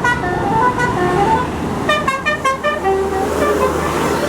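Tour bus 'telolet' horn playing a quick tune of stepped notes, several tones sounding together at times, over a low engine rumble.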